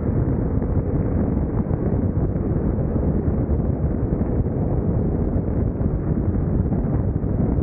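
Steady wind noise on the microphone of a BMW R1150GS Adventure motorcycle on the move, with the bike's running noise mixed in.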